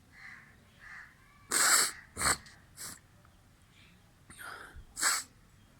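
Sneezing: two faint lead-in sounds, then two sharp sneezes in quick succession about a second and a half in, and another sneeze near the end.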